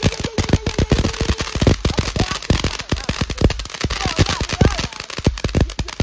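Consumer ground firework going off: rapid, dense crackling pops and bangs. A steady whistle sounds over the pops for about the first second and a half, with short whistling glides later on.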